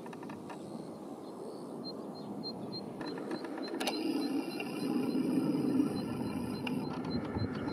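Boeing 767-300ER airliner on final approach, its twin General Electric CF6-80C2 turbofans heard as a low rumble that grows steadily louder as the jet draws nearer.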